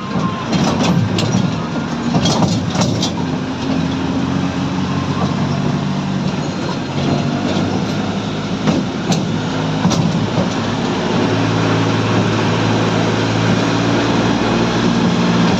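Toy train running: a steady engine drone with rattling and a few sharp knocks, the drone growing stronger in the second half.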